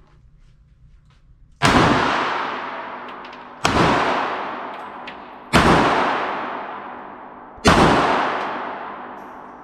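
Four pistol shots from a Ruger LCP .380, fired one at a time about two seconds apart. Each shot is followed by a long echo off the indoor range's concrete walls that fades slowly.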